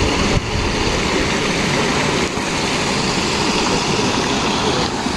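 Shallow stream of water rushing over stones, a steady wash of water.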